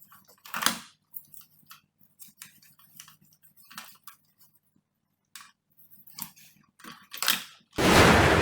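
Small clicks and taps from handling the opened laptop's parts, two of them louder, over a faint steady hum. A sudden loud rushing noise starts near the end.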